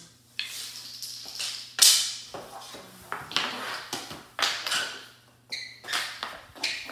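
Plastic floor-hockey sticks clacking and scraping on a hardwood floor in a string of sharp, irregular hits, with a short high squeak about five and a half seconds in.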